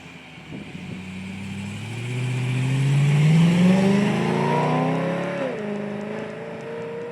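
BMW E9X M3's 4.0-litre V8 exhaust under acceleration: the revs climb steadily for a few seconds, then drop sharply about five and a half seconds in and hold at a steady lower note.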